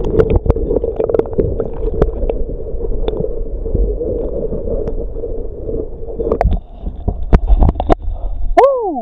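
Sea water heard through a submerged camera: a steady muffled rush with gurgling and scattered knocks. About six and a half seconds in come louder knocks and splashes as it comes out of the water, and just before the end a man gives a short 'whoo' that rises and falls in pitch.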